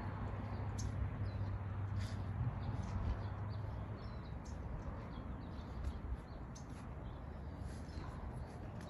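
Small birds chirping now and then over a steady low background rumble, with a low hum during the first few seconds that then fades.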